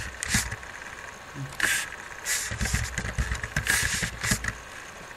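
Computer keyboard being typed on: irregular clatter of keystrokes, a few of them louder, as a password is entered.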